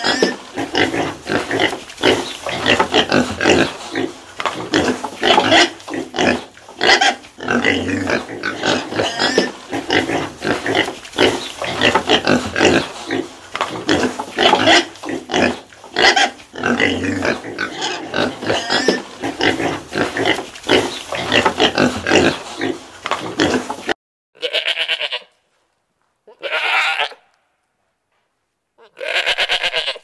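A sow and her piglets grunting and squealing, many short calls overlapping busily. About three-quarters of the way through this stops suddenly, and goats bleat three times, each bleat about a second long with silence between.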